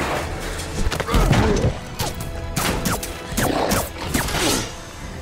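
Action-film fight sound mix: a string of heavy thuds and crashes, the loudest about a second in, over background music.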